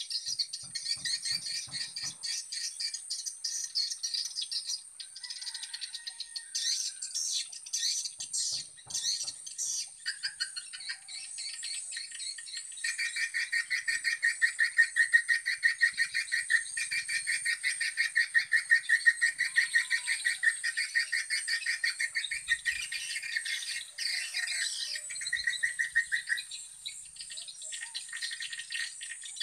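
Swiftlet calls: dense rapid twittering and buzzy clicking from a swiftlet-house lure call (suara panggil) played through tweeter speakers, with a fast rattling trill that grows louder about halfway through and stops a few seconds before the end.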